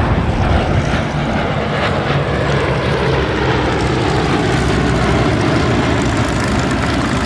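Bristol Blenheim Mk I's twin Bristol Mercury radial engines running loud, their pitch sliding slowly down over the second half.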